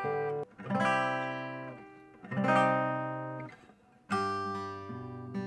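Acoustic guitar strummed slowly, one G chord struck three times about a second and a half apart, each left to ring and fade, as a beginner's chord demonstration.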